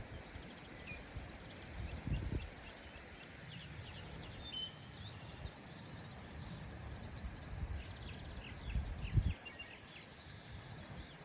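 Faint outdoor rural ambience with scattered small bird chirps and a couple of low bumps, about two seconds in and again near the end.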